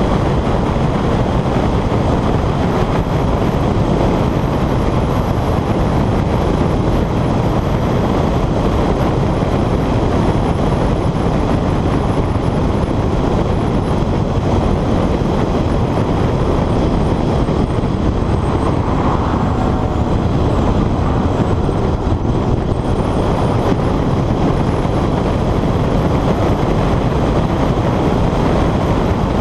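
Honda CR-X driven at speed: loud, steady wind buffeting on a bonnet-mounted camera's microphone, with engine and road noise underneath.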